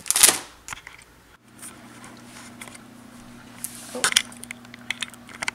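A plastic protein-bar wrapper crinkling briefly at the start. A low steady hum follows from about a second in, with a few light handling knocks, the clearest about four seconds in.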